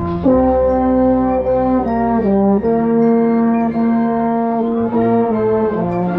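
Marching band brass playing loud held chords that move to a new chord every half second to a second, with a marching baritone horn close to the microphone.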